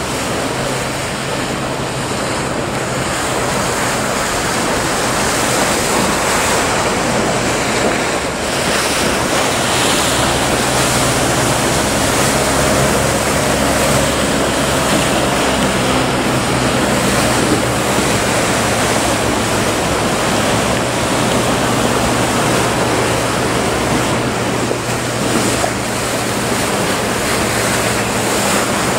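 Breaking waves and surf wash steadily, with wind on the microphone. Under them runs the steady drone of outboard or inboard motorboat engines pushing through the swell, stronger from about ten seconds in.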